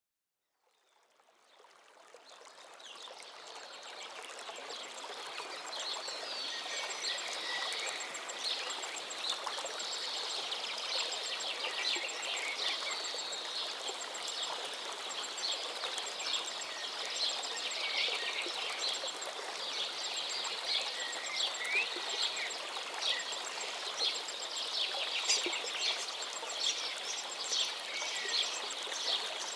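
Many birds chirping and calling together over a steady outdoor hiss, fading in from silence over the first few seconds.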